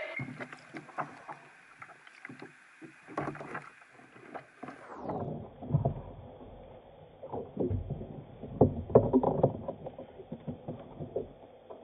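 Irregular knocks, bumps and handling noises on a kayak as a large corvina is lifted and held up on board, the loudest cluster of knocks about three quarters of the way in.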